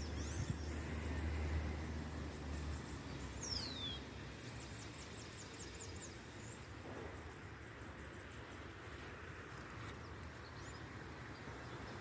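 Outdoor ambience with a low wind rumble for the first few seconds. A bird gives one high falling whistle about three and a half seconds in, then there is a quick run of high ticks like a bird's trill.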